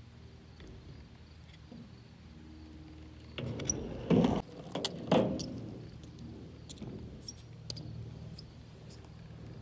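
Skateboard wheels rolling over a ramp and pavement, a low rumble that grows louder partway through, with two loud clacks of the board about four and five seconds in and a few lighter clicks after.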